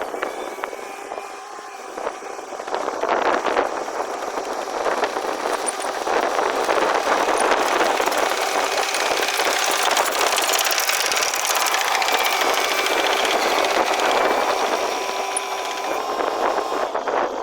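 Long-boom excavator's engine running, growing louder over the first few seconds and then holding steady.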